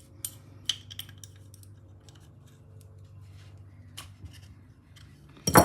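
Sparse light metallic clicks and clinks of an adjustable spanner working a fitting on a British Seagull outboard's carburettor, with one loud, short clatter near the end.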